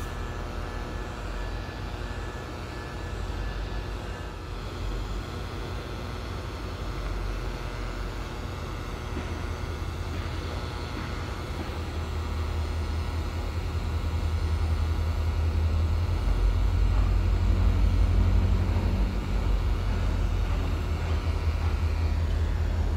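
TIG welding a steel pipe joint: a steady low electrical hum and arc buzz. It grows louder about halfway through.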